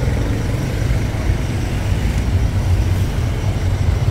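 Street traffic: motorbikes and other vehicles running past, a steady low rumble.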